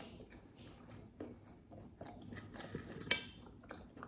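Faint clicks of food and tableware being handled, with one sharp clink that rings briefly about three seconds in.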